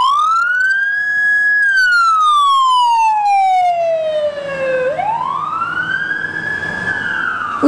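Wailing police-style siren, a clean electronic tone that rises, holds briefly, slides slowly down, and rises again about five seconds in.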